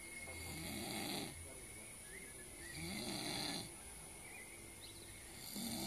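Loud rhythmic snoring, one snore about every two and a half seconds: three snores, the last starting near the end.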